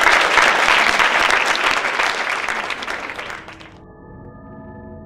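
Audience applauding, fading over a few seconds, then cutting off abruptly near the end, where soft music of a few held tones takes over.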